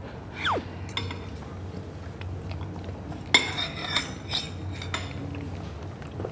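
Spoons and chopsticks clinking against dishes as people eat, with a cluster of sharp, ringing clinks about three to five seconds in, the first the loudest. A short falling tone sounds about half a second in.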